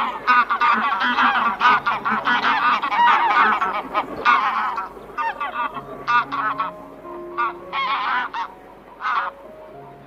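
Several white domestic geese honking, many calls overlapping for the first few seconds, then thinning to scattered single honks.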